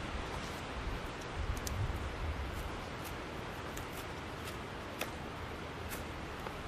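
Outdoor ambience: a steady rushing hiss with gusts of low wind rumble on the microphone, and faint scattered ticks about once a second.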